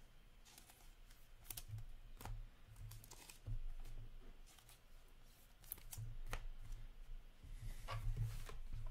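Trading cards and clear plastic card sleeves being handled: faint scattered clicks and short rustles as cards are sleeved and set down, over a low steady room hum.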